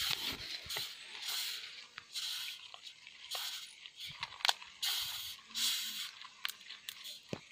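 Scratchy rustling and scraping in repeated short bursts about a second apart, with small clicks, as a large beetle is handled and turned in the fingers.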